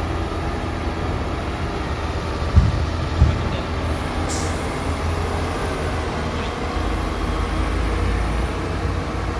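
Komatsu PC450-8 excavator's diesel engine running steadily under work, with two heavy thumps about two and a half and three seconds in and a short high hiss about four seconds in.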